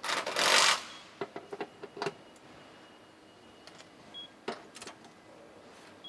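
Hand-tool work under a car body on an assembly line: a loud burst of hiss in the first second, then a quick run of sharp metallic clicks and taps, with a few single clicks later.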